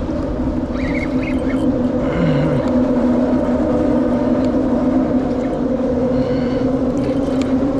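A steady mechanical hum holding two constant pitches, with a few faint brief higher sounds over it.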